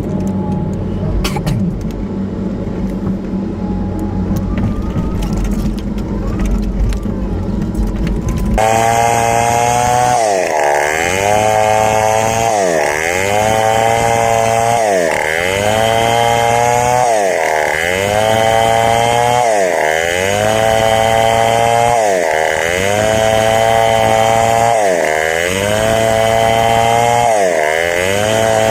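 A heavy machine's engine runs with a steady low hum, with a few clicks. After about eight seconds it cuts abruptly to a chainsaw cutting wood: its pitch sags under load and climbs back about every two seconds, over and over.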